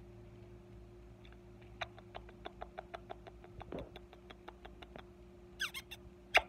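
Sun conure making a run of soft, evenly spaced clicks, about six a second, then a few short squeaky chirps and one sharp, louder squeak near the end.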